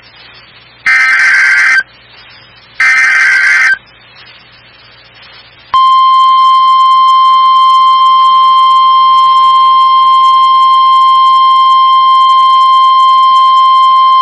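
Emergency Alert System SAME header: two short, identical bursts of warbling data tones about a second apart. After a short pause comes a long, steady, single-pitch NOAA Weather Radio 1050 Hz warning alarm tone, which signals that a tornado warning is about to be read.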